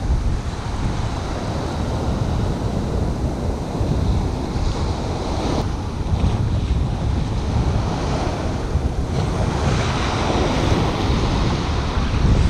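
Ocean surf washing up the beach, with wind buffeting the microphone in a low rumble; the wash swells louder about ten seconds in as a wave runs up.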